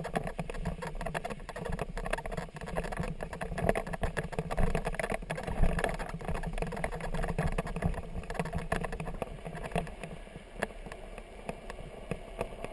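Kickbike being towed over bumpy leaf-covered grass, its wheels rumbling and its frame rattling and knocking over the uneven ground; the rumble gets quieter near the end.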